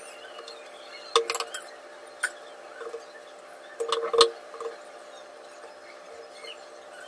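Kitchen utensils knocking and clinking during cooking: a few scattered sharp knocks with the loudest cluster about four seconds in, over a steady low hum.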